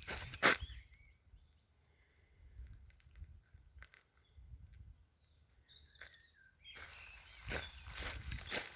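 Footsteps crunching through leaf litter on a forest floor, pausing after the first second; in the lull a few small birds chirp faintly, and the crunching steps start again about seven seconds in.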